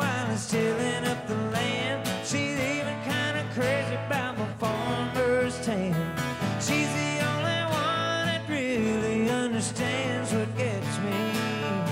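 Country song played on two acoustic guitars with a man singing.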